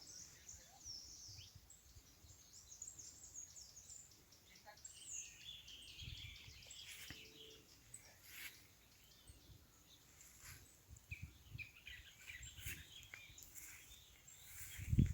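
Birds chirping and twittering from several directions at once, short high calls overlapping throughout, with a low thump near the end.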